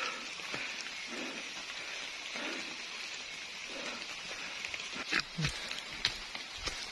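Light rain pattering steadily on wet rainforest leaves, with a few thuds of footsteps on the muddy trail about five seconds in.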